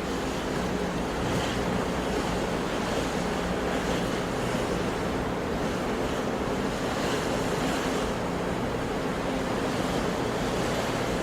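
Sea surf washing in a steady, continuous rush with no distinct breaks.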